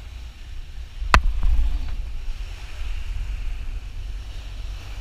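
Sport-fishing boat under way: a steady low rumble of wind on the microphone over engine and wake noise, with a faint hiss of churning water. One sharp click sounds about a second in.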